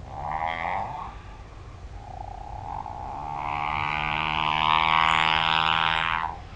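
Whale call recorded underwater by a hydrophone: a short pitched call about half a second in, then a longer call that swells in loudness over about three seconds and cuts off, over steady low background noise.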